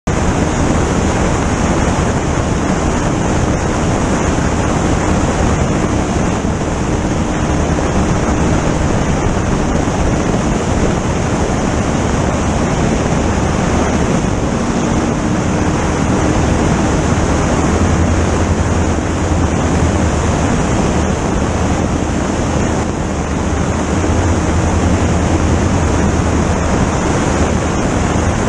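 Stock car's small-block Chevy V8 held steady at about 5000 rpm on the rev limiter at full speed, largely buried under loud, steady wind rush on the microphone.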